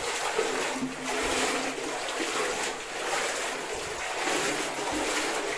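Shallow stream water rushing steadily, with a few soft low thumps.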